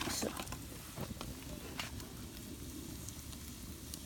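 Sliced onions sizzling in a frying pan over the wood fire of a brick rocket stove, with scattered short crackles and pops. A louder cluster of knocks or rustles comes right at the start.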